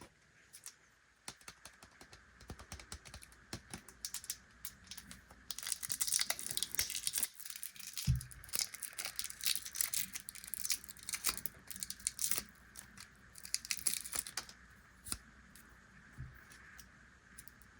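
Plastic snack packaging being handled and torn open: scattered crackles at first, then a dense stretch of crinkling and tearing in the middle, tapering off to a few clicks near the end.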